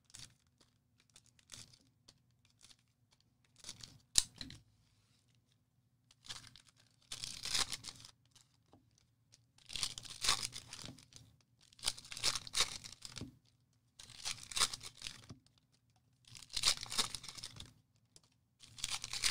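Trading-card pack wrappers being torn open and crinkled one after another: a short tearing rustle roughly every two seconds.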